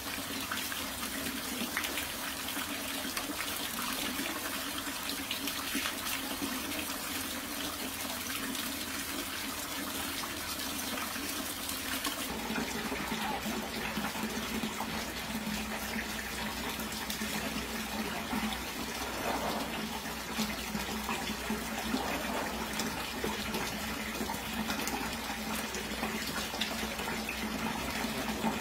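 Water pouring steadily from bamboo spouts and splashing onto a capybara's back and the wet stone floor, a continuous rush; the sound becomes less bright about twelve seconds in.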